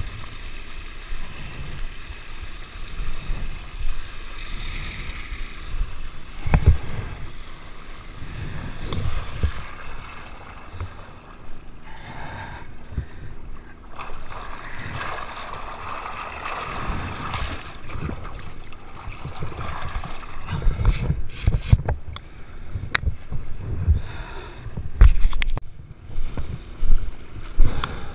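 Trash pump engine running steadily while water gushes from its discharge hose and splashes, with irregular low thumps that grow louder near the end.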